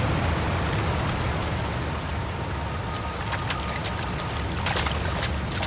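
Waterfall water rushing in a steady hiss, with a scatter of short drips and splashes.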